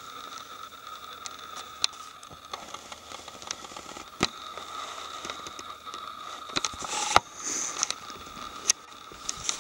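Footsteps and camera handling on a wet forest floor of leaf litter and old snow: irregular crackles, scrapes and clicks, the sharpest about seven seconds in, over a faint steady high tone.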